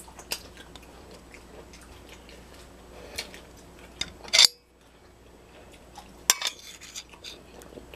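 A metal fork clinking and scraping on a dinner plate during a meal: scattered light clicks, with a sharper clink about four and a half seconds in and another just after six seconds.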